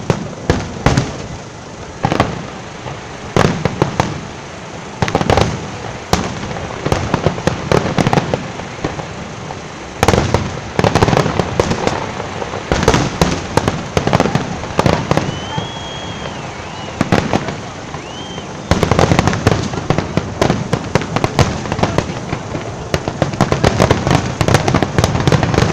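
Fireworks show: aerial shells bursting one after another in sharp bangs with crackle, growing into a dense barrage in the last third. A short high whistle sounds twice in the middle.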